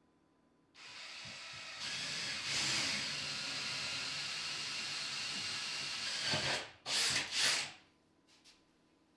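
Cordless drill boring a hole up into the wooden bottom of a kitchen cabinet. It runs steadily for about five seconds from a second in, then gives three short bursts near the end and stops.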